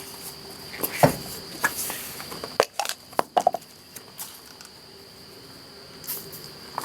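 Irregular light clicks and knocks from handling a pried-open plastic power window switch and small tools, over a faint steady high whine.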